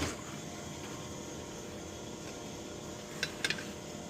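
Two quick, light clicks about a third of a second apart, from parts being handled while a Lovejoy jaw coupling is fitted between a circulator pump and its motor, over a steady background hum.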